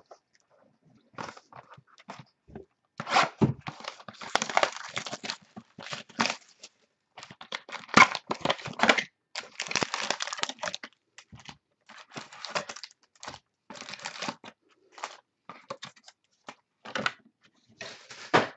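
Plastic wrapping being torn off a sealed box of football trading cards and crumpled, in irregular crinkling, crackling bursts, with clicks and scrapes as the cardboard box is opened and the packs are handled.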